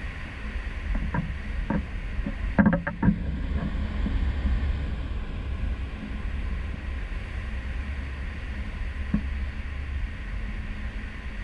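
Steady low rumble of wind and churning wake at a cruise ship's stern. A few short knocks come through, a cluster of them loudest about two and a half to three seconds in.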